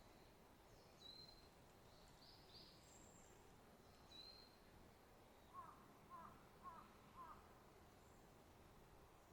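Faint bird calls over quiet outdoor background: a few short, high chirps, then four short, lower calls about half a second apart around the middle.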